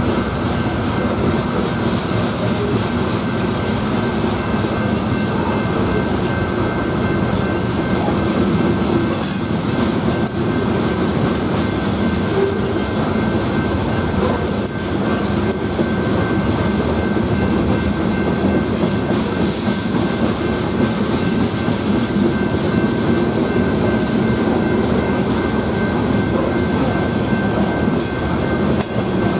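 Covered hopper cars of a freight sand train rolling steadily past, with a continuous rumble and wheels clacking over the rail joints. A thin steady high tone rings over the noise.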